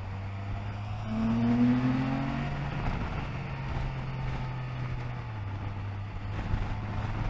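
Can-Am Spyder F3-T's three-cylinder engine running at road speed. It rises in pitch about a second in as it accelerates, then holds steady. No belt hum is heard, now that the loose final drive belt has been tightened.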